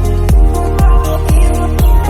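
Electronic dance music with a steady kick drum about twice a second under sustained synth tones.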